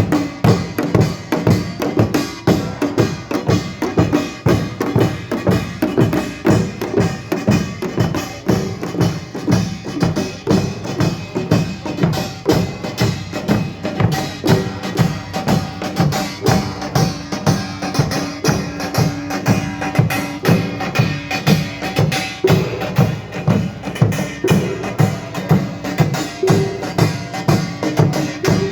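Korean pungmul percussion band playing a steady, driving rhythm on small gongs, drums and a large gong, with strong beats about twice a second.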